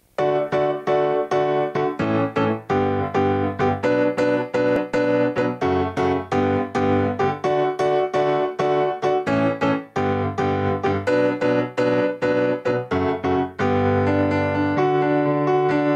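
Background piano music: chords struck in a quick, even rhythm, turning to fuller, held chords near the end.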